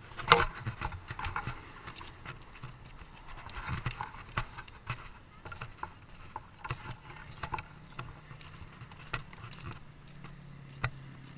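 Footsteps crunching on a gravel road shoulder, with scattered clicks and knocks and a sharp knock just after the start. A low steady hum comes in about seven seconds in.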